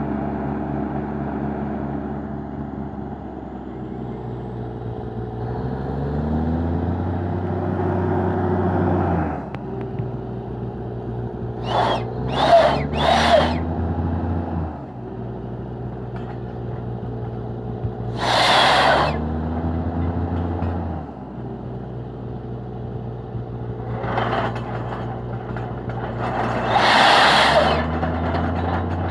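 Truck-mounted borewell drilling rig running, its engine rising and falling in pitch several times as the rig is worked. Short hisses of air break in: three quick ones near the middle, one a little later, and two more near the end.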